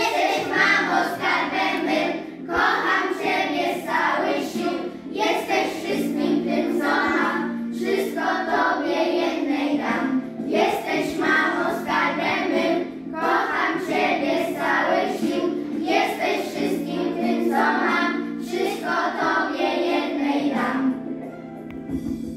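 A group of children singing a Polish song together over instrumental accompaniment, with the singing fading out about a second before the end.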